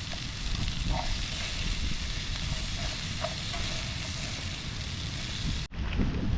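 Campfire burning, a steady hiss with scattered small crackles and pops from the burning wood; near the end it cuts off abruptly to a duller, wind-like rush.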